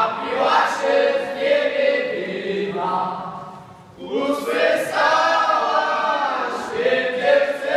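A group of voices singing a folk song together in two phrases, with a brief break about halfway through before the next phrase starts.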